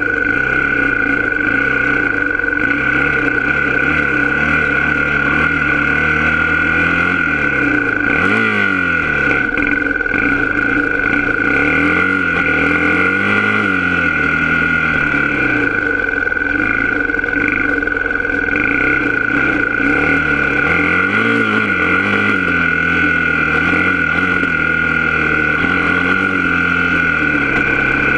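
Off-road vehicle engine running on a dirt trail ride, its pitch rising and falling again and again with the throttle, under a steady high-pitched whine.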